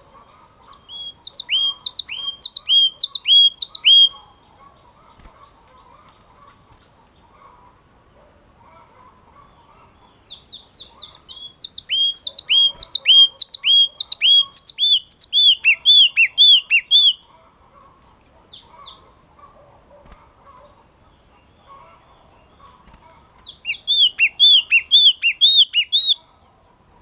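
Yellow-cheeked tit singing in three bouts. Each bout is a quick run of the same two-note phrase, a high note followed by a downward swoop, about two or three phrases a second. The middle bout is the longest, about seven seconds.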